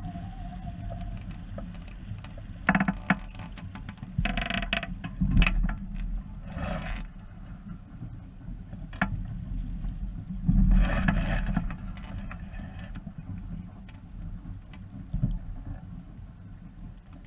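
Water rushing and splashing along a small sailboat's hull as it sails heeled over, with a steady low wind rumble. Several louder splashes come through, the biggest about five and eleven seconds in.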